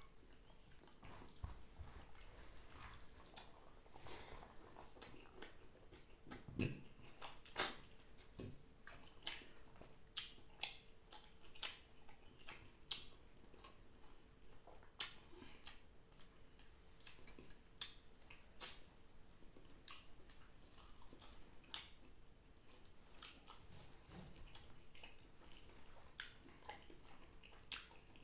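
Eating sounds of a person eating rice and fish by hand: irregular wet clicks, smacks and chewing as rice is mixed and mouthfuls are eaten, with a few louder smacks spread through.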